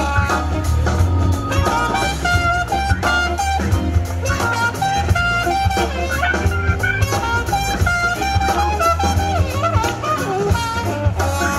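Live jazz-funk band playing: a trumpet takes a melodic solo over electric bass, guitar and drum kit.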